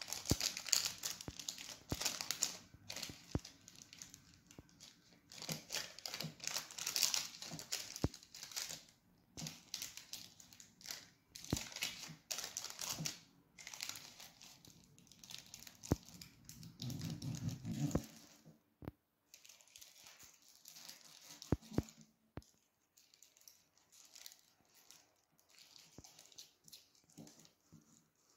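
Baking paper crinkling and rustling in irregular bursts as it is pressed and creased around the base of a glass to shape a cupcake liner. After about 18 seconds it thins to a few faint rustles and sharp taps.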